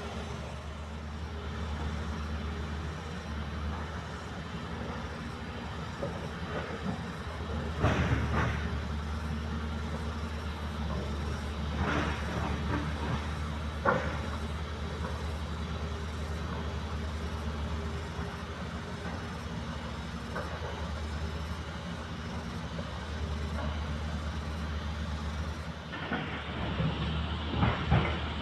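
Heavy diesel machinery engine running steadily, with a few loud clanks of rock dropping into a dump truck bed and a rapid flurry of knocks and rattles near the end.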